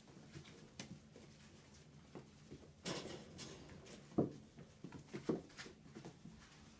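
Border collie puppies scuffling in play on a carpet: faint soft patter and irregular bumps, with a sharper knock about four seconds in.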